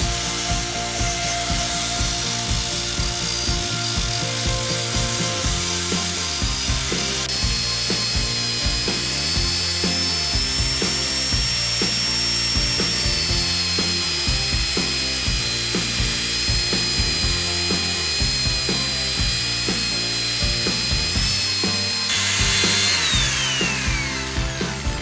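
Electric power tool working wood, its motor whining steadily with small shifts in pitch under load. It winds down near the end, the whine falling away.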